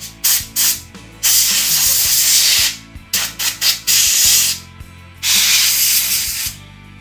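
Ultra Duster can of compressed air spraying at a laptop's CPU fan to blow the dust out: two short puffs, a long hissing blast, a run of quick puffs, then two more long blasts. Soft background music runs underneath.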